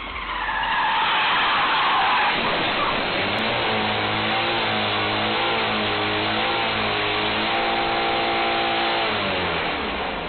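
Car engine revving hard with tires squealing and skidding. The pitch wavers and is held high for several seconds, then drops about a second before the end, as the car crashed against the fuel-pump island spins its wheels.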